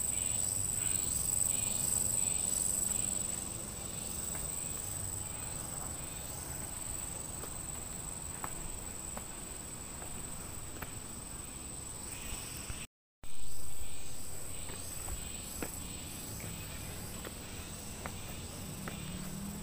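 Insects droning steadily in a high, continuous tone, with faint footsteps on the trail. About 13 seconds in the sound cuts out briefly and comes back with a sudden loud noise that fades within a second or two.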